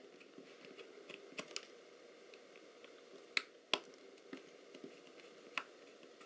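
Small screwdriver tip working at the Lomo LC-A's body: faint scattered clicks and scrapes, with a few sharper clicks a little past the middle.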